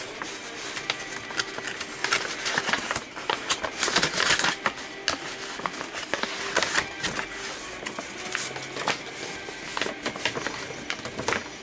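A large sheet of paper rustling and crackling as it is folded and creased by hand, with many irregular crisp clicks and snaps, busiest a few seconds in.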